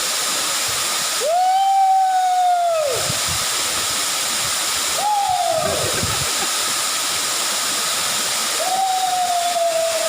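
Steady rush of the Panisan waterfall. Three long whistle-like tones sound over it, at about a second in, midway, and near the end.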